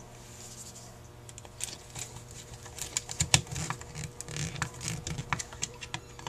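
Irregular small clicks and taps of a screwdriver and small metal parts being handled on a Carter YFA carburetor during reassembly. The clicks are sparse at first and come thicker and louder from about two seconds in.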